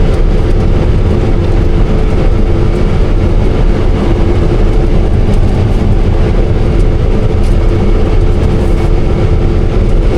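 Combine harvester running while cutting wheat: a steady drone of engine and threshing machinery with a constant whine over it.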